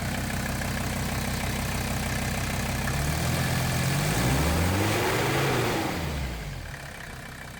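Lawn mower engine running, revving up once from about three seconds in and dropping back a couple of seconds later, then running on more quietly.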